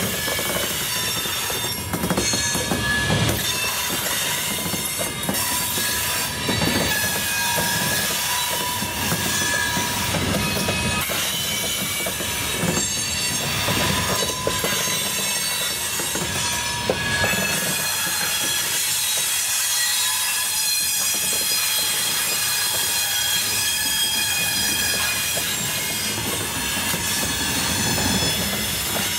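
Freight train cars rolling slowly past, the wheels giving a steady high-pitched flange squeal over the rumble. Scattered clicks come as the wheels cross rail joints.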